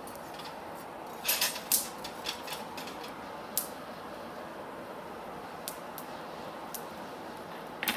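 Steady rush of a coal forge fire burning hot, with light metallic clinks of steel tongs and rods against the forge rack: a quick cluster a little over a second in, a few single clicks, and a double clink near the end. The leaf is being reheated because thin stock cools quickly.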